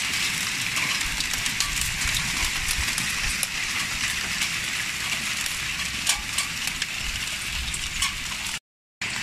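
Hailstorm: large hailstones pelting a flat roof and garden, a dense steady hiss with many sharp little clicks of individual stones striking. The sound cuts out for a moment near the end.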